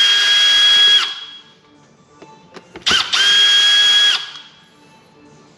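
Cordless drill-driver backing out the small Phillips screws from a motorcycle dashboard display's clear plastic screen, running in two short bursts. Each burst is a steady motor whine that spins up and winds down, the first stopping about a second in and the second starting about three seconds in.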